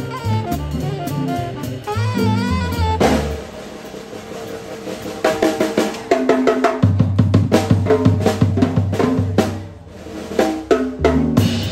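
Small jazz combo playing live: saxophone and trumpet finish a melodic phrase about three seconds in, then the drum kit takes over with a solo of snare and bass drum strokes and cymbals, with low double bass notes coming in under it partway through.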